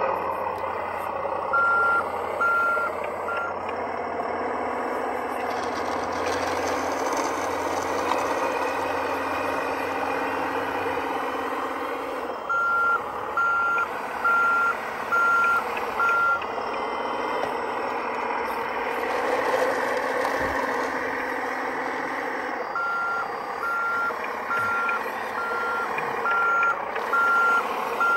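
1/14 scale Kabolite K988 RC wheel loader running steadily, with its reversing alarm beeping at about two beeps a second in three spells as it backs up.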